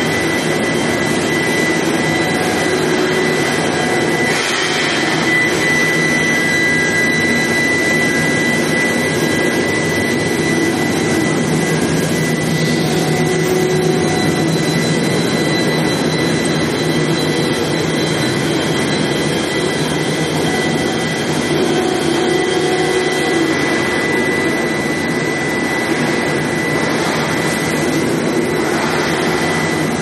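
Steel pipe induction heat treatment line running: a loud, steady machine noise with a constant high-pitched whine over it.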